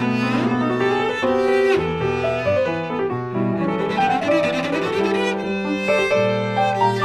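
Cello and Bösendorfer grand piano playing together, the cello bowing a melody over the piano's accompaniment.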